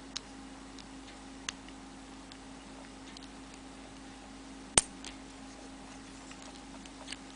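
Scattered light clicks of a loom hook and rubber bands against the pins of a Rainbow Loom Monster Tail as bands are lifted over the pins, with one sharper click a little before five seconds in. A faint steady hum runs underneath.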